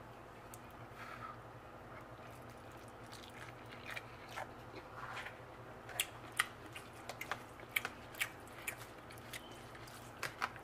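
A person chewing food close to the microphone, with scattered short wet mouth clicks and smacks that come more often in the second half, over a faint steady hum.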